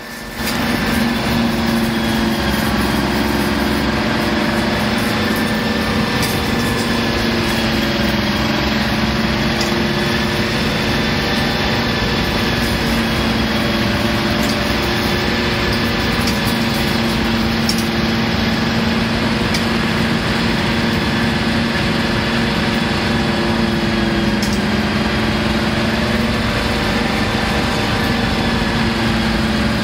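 Class 55 Deltic's two Napier Deltic two-stroke opposed-piston diesel engines working hard under power, the steady 'Napier thrash', heard from the locomotive's cab window.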